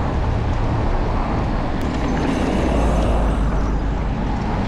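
Steady rush of road and wind noise from a moving bicycle, with car traffic passing close by and a heavy low rumble.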